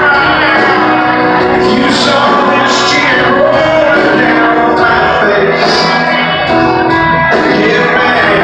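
Live country band playing with a lead vocal and guitars, loud and heard from within the audience in a large hall.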